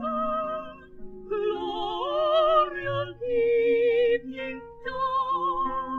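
Two women singing a classical art-song duet in operatic style with wide vibrato, their lines moving in parallel, over piano accompaniment, on a 1933 recording. The phrases break briefly about a second in and again past the midpoint.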